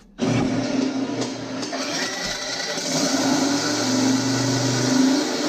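Engine sound effect of a car firing up: it starts suddenly about a quarter second in and runs steadily with a low rumble, getting a little louder partway through.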